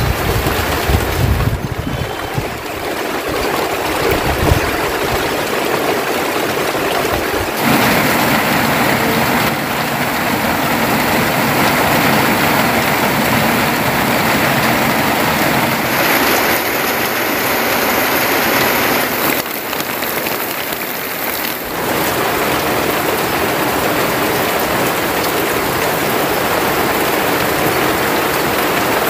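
Heavy rain falling steadily, a dense even hiss, with a few low knocks in the first couple of seconds.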